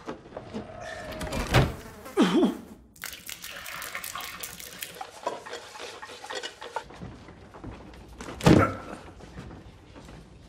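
Chamber-pot chores: liquid sloshing and splashing as pots are emptied and washed, in a string of short separate sounds. A loud sharp knock comes about eight and a half seconds in.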